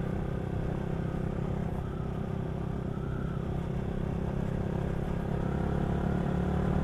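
Motorcycle engine running at a steady speed, picked up by a microphone inside the rider's helmet, on a rough gravel-and-dust track.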